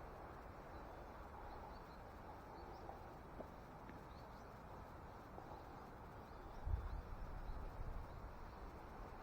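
Wind rumbling on the microphone in gusty conditions, with a gust picking up about seven seconds in. Faint, scattered high chirps sound in the background.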